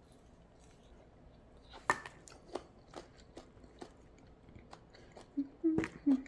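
Mouth sounds of someone eating the soft pulp of an ice cream bean (Inga edulis): scattered wet clicks and smacks, one or two a second after a quiet start, with a few short hummed "mm"s near the end.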